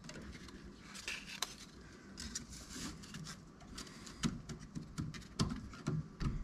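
Wooden shims being worked into the gap above a door frame's head jamb: scattered light clicks and scrapes of thin wood, irregular throughout.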